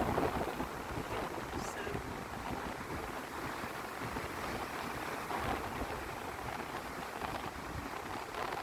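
Waves breaking on a beach as a steady rush of surf, with wind buffeting the microphone.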